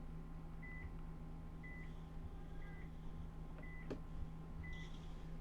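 Short, faint electronic beeps, one high tone about once a second, evenly spaced, over a steady low hum, with a single sharp click about four seconds in.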